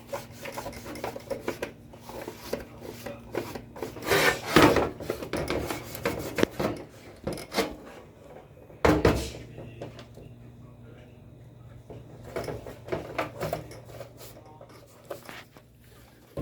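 Irregular rubbing, scraping and clicking of hands working on equipment, with two louder scrapes or knocks about four and nine seconds in, over a steady low hum.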